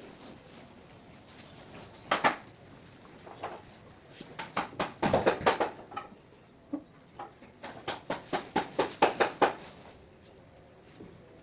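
Several bursts of quick, sharp taps and clicks from hand work on a sofa, the longest run going at about four or five a second.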